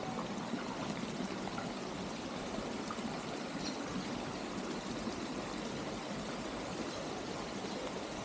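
Steady running, trickling water from the fountains and spring-fed pools of a water garden.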